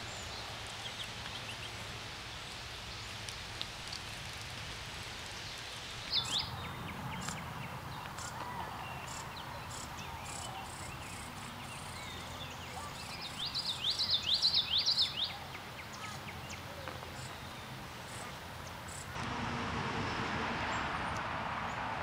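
Wild songbirds calling in the open: a few short high chirps, then a quick run of rapid, sweeping high chirps lasting about two seconds. Steady outdoor background noise runs underneath and gets louder near the end.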